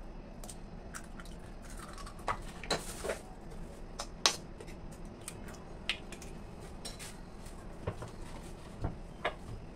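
Eggs being cracked open with a kitchen knife: a series of sharp taps and clicks of the blade striking the shells, scattered irregularly, the loudest about four seconds in. A brief hiss near the three-second mark goes with the eggs being emptied into a ceramic bowl.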